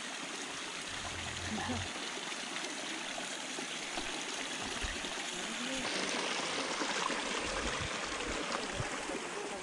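Water running steadily in a stream, a continuous rushing that gets a little louder and brighter about six seconds in.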